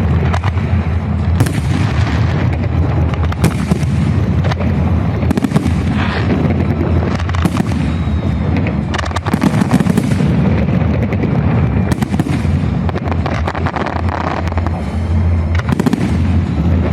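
Fireworks salute: aerial shells bursting one after another, with sharp bangs every second or so over a continuous low booming.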